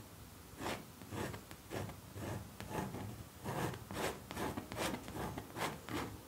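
Palette knife scraping acrylic paint across a canvas in a run of short, faint strokes, about two a second.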